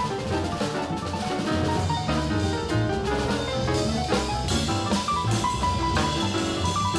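Small-group jazz recording: a busy drum kit and cymbals under saxophones, trumpet, piano and double bass, with one high note repeated several times in the second half.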